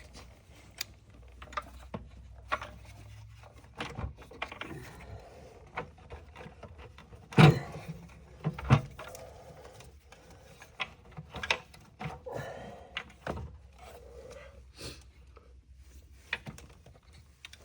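Scattered clicks, clinks and knocks of hand tools and metal engine parts being handled during work on an engine, with two louder thuds, one about seven and a half seconds in and one about a second after it.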